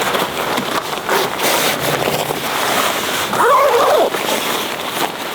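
Nylon rain jacket rustling and scraping as it is put on. There is a brief rising-and-falling scrape about three and a half seconds in.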